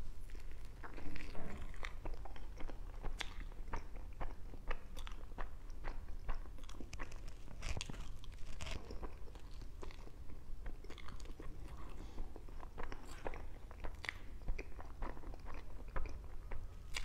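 Close-up eating sounds of a person biting and chewing a soft chocolate crepe roll filled with cream: many small irregular mouth smacks and clicks.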